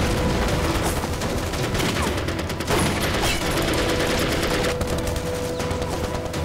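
Battle gunfire from many guns at once, a dense, unbroken fusillade of shots.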